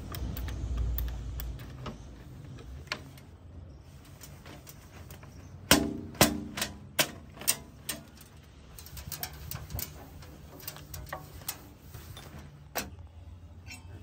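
A cloth wiping and knocking against the cab glass and bodywork of a JCB 3DX backhoe loader: a low rumble at first, then a quick run of about six sharp knocks near the middle that fades over two seconds, followed by lighter scattered taps and one more knock near the end.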